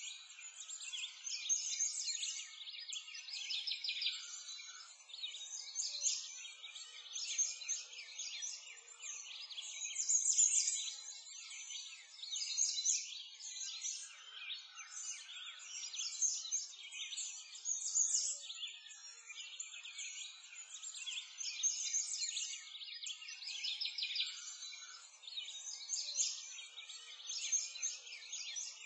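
A dense chorus of small songbirds chirping and twittering, all high-pitched with nothing low beneath it, swelling and fading every second or two.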